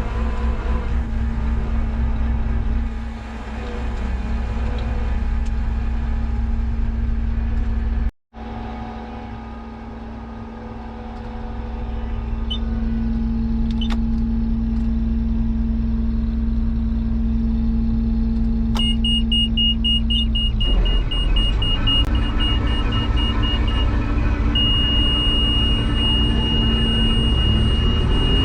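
New Holland TR89 combine harvester running steadily, with a brief break about eight seconds in. About two-thirds through, a high electronic beeping starts, pulsing at first and then held as one continuous tone near the end.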